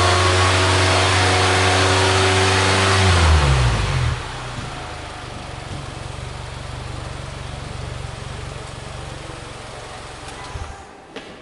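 Mitsubishi Delica D:5's engine held at raised revs, then the revs fall back to idle about three seconds in. It idles steadily and cuts off suddenly near the end.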